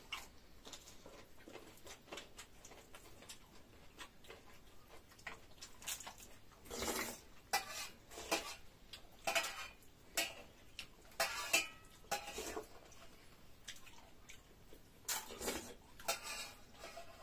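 Eating at a table: dishes and utensils clinking, with scattered small clicks and a run of louder short clatters from about seven seconds in and again near the end.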